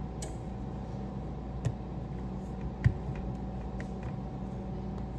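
Steady electrical hum of a kitchen appliance, with two light knocks, one about a second and a half in and another near three seconds, as crescent-roll dough is arranged on the pan.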